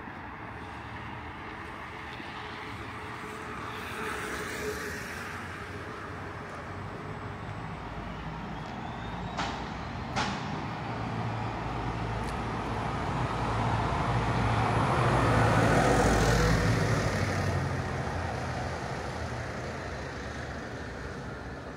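A heavy road vehicle's engine grows louder, passes at its loudest about two-thirds of the way through, then fades, over the steady hum of city street traffic. Two sharp clicks come a little before halfway.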